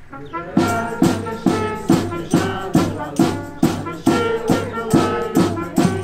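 Live Portuguese Janeiras folk music played by a group of street musicians: a steady beat a little over two strikes a second, with jingling percussion, under sustained instrumental chords.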